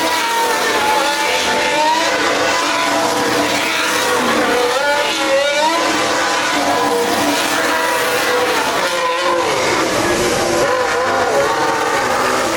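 Formula 1 car engine revving up and down, its pitch wavering continuously, over a hiss of spinning rear tyres while the car does donuts.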